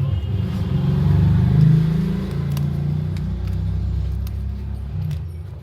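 A motor vehicle engine running close by: a low rumble that swells about a second and a half in and then eases off, with a few faint clicks over it.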